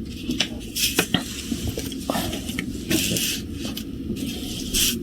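Small picture pieces being handled and fitted into place: a string of light taps and clicks with brief rustles in between.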